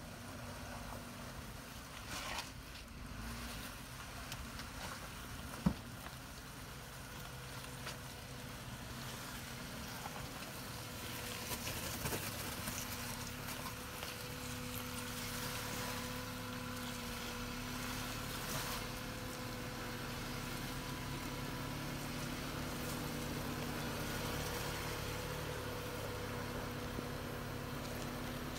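Jeep Wrangler JL Rubicon crawling over rock, its engine running steadily at low revs and growing louder as it comes closer. A single sharp knock about six seconds in.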